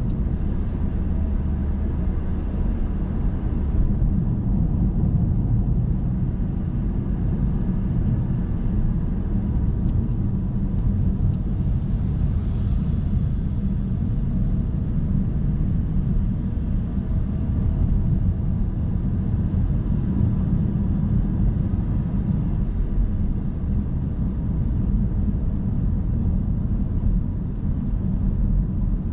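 A car driving along a road: the steady low rumble of its engine and tyres.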